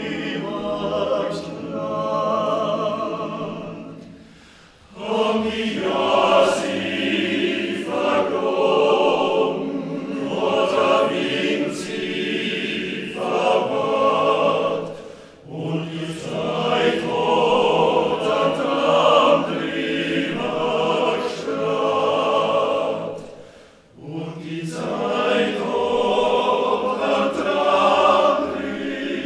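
Male choir singing a Carinthian folk song, with short breaks between phrases about four and a half, fifteen and twenty-four seconds in.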